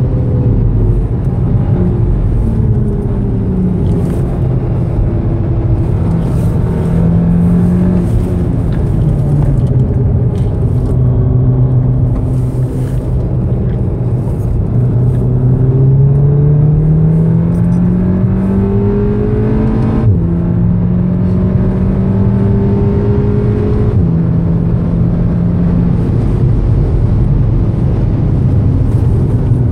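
2014 VW Golf VII R's turbocharged four-cylinder engine heard from inside the cabin over road and wind noise. It falls in pitch under hard braking, then climbs steadily under full acceleration. The pitch drops sharply twice, about 20 and 24 seconds in, as it shifts up.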